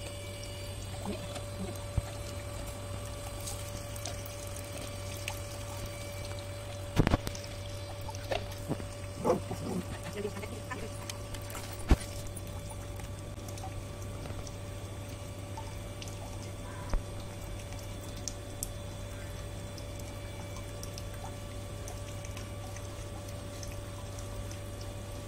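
Water dripping and splashing on a concrete floor while a lathered dog is scrubbed, over a steady low hum, with a few sharp knocks now and then.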